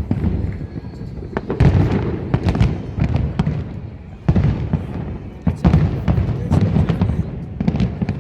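Large fireworks display: a dense, continuous run of sharp bangs and booms over a low rumble.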